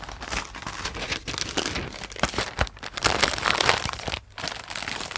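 Clear plastic packaging bags of baby clothes crinkling and rustling as they are handled, louder from about three seconds in, with a brief lull after four seconds.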